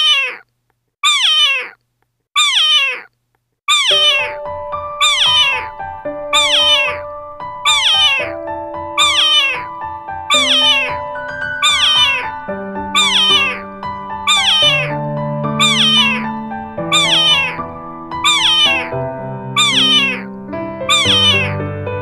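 A cat's meow repeated over and over at an even pace, about one every second and a third, each call falling in pitch. About four seconds in, music with a steady bass line joins underneath.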